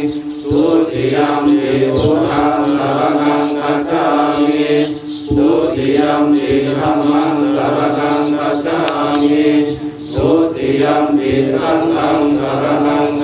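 Group of voices chanting Pali Buddhist verses in unison on a steady, near-monotone pitch, pausing briefly for breath about every five seconds.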